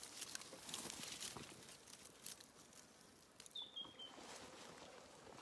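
Dry scratching and rustling clicks in the first second or so, then a single short bird chirp falling slightly in pitch about three and a half seconds in.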